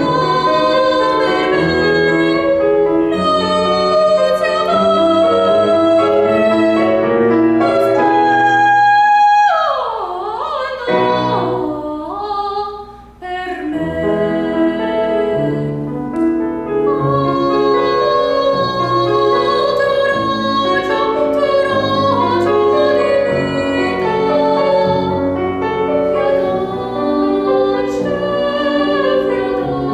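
A female classical singer singing an art song with grand piano accompaniment. About nine seconds in she holds a high note, then slides down in a wavering glide, and the sound dips briefly before voice and piano carry on.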